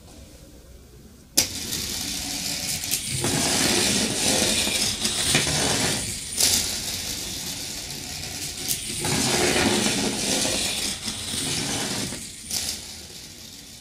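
Homemade electromagnetic train, a dry cell battery with neodymium magnets on both ends, rattling and scraping as it runs through a bare copper-wire coil track. It starts with a sharp click about a second in, swells and fades twice with a few sharper clicks, and dies away near the end.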